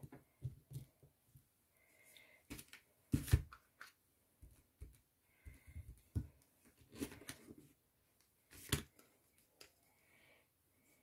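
A clear rubber stamp on an acrylic block being handled, pressed onto tissue paper and set down: scattered soft knocks and taps, the loudest a little after three seconds and again near nine seconds.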